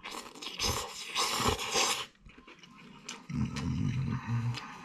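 Instant cup noodles slurped up off a fork for about two seconds, then chewing with a low hummed 'mmm' lasting just over a second.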